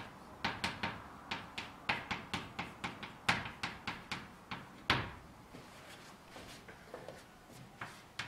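Chalk tapping on a blackboard as characters are written: a quick run of sharp taps, several a second, for about five seconds, then only a few faint taps.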